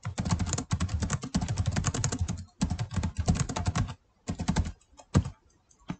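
Typing on a computer keyboard: a fast, continuous run of keystrokes for about four seconds, then a short pause and a few more keystrokes near the end.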